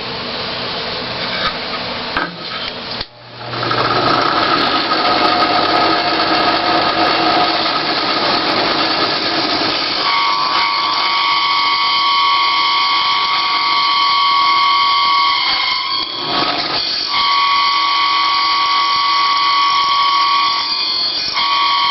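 Drill press driving a 4-inch hole saw through a wooden board: steady cutting noise that stops briefly a few seconds in and starts again. About halfway through, a high-pitched squeal sets in as the saw cuts deep into the wood. It breaks off for a moment and then continues.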